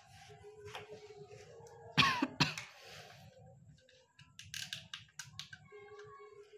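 Battery-powered plastic toy train running, its motor giving a low rattling whir under a steady electronic tone that cuts out and comes back. There are sharp plastic clicks as it is handled onto the track, and a loud cough-like burst about two seconds in.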